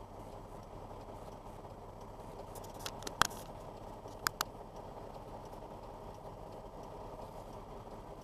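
Semi truck's diesel engine idling steadily, heard from inside the cab, with a few sharp clicks about three seconds in and two more a second later.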